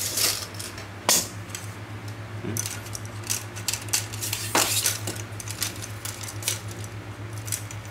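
Light metallic clicks and clinks from a camera tripod's legs and fittings being handled, the sharpest about a second in and another past the middle, over a steady low hum.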